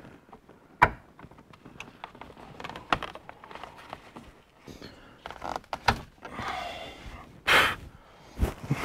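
Scattered light clicks, taps and rustling as a car's sun visor is held up against the headliner and shifted about, feeling for its screw holes. A short, loud rush of noise comes about seven and a half seconds in, followed by a sharper knock.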